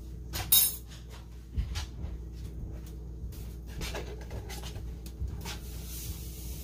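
A few clicks and knocks of kitchen things being handled, the loudest about half a second in, over a steady low hum.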